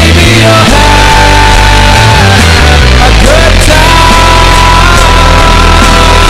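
Live rock band playing loudly, with a lead line holding two long high notes over steady bass and drums.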